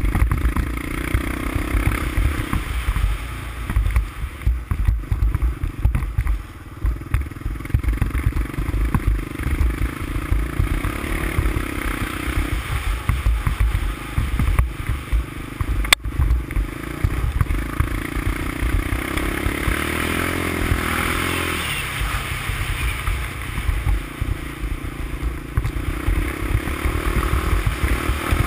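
Honda ATC350X all-terrain vehicle's single-cylinder engine running under varying throttle while riding over a bumpy snow trail, steadier for a few seconds past the middle. A sharp knock about halfway through.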